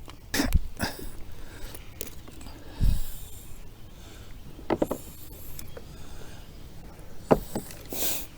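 Scattered knocks and thumps of a fish being handled while the hook is worked out of its mouth, with a few short grunt-like sounds about five seconds in and a brief hiss near the end.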